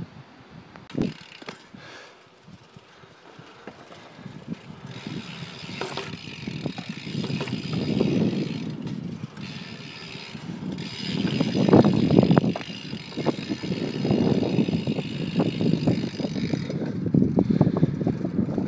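BMX bike rolling over rough concrete: a rumble of tyres on the surface that builds from about five seconds in, rising and falling, with small clicks and rattles and a higher hiss over it.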